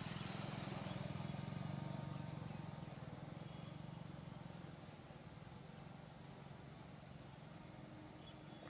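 A motor vehicle engine running steadily, fading gradually as it moves away from about two or three seconds in.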